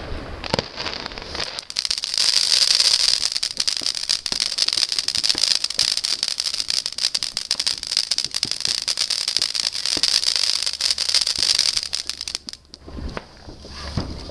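Firework crackling: a dense, rapid stream of tiny pops that starts about two seconds in and cuts off suddenly near the end.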